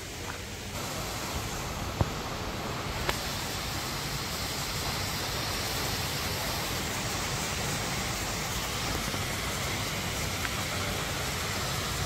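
Steady rush of flowing water, with two sharp clicks about two and three seconds in.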